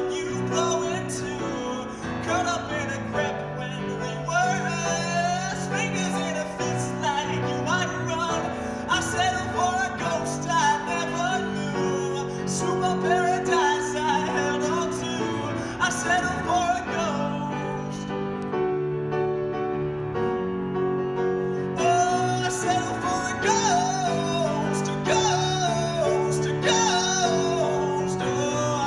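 A pop song performed with a lead vocal over instrumental accompaniment, with a steady beat.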